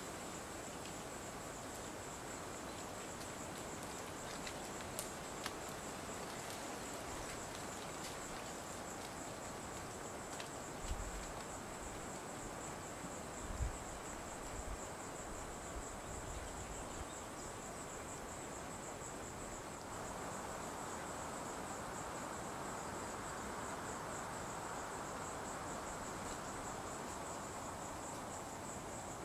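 Steady, high-pitched insect chorus, a fast pulsing trill, over a soft hiss of background noise. A couple of brief low thumps come around the middle.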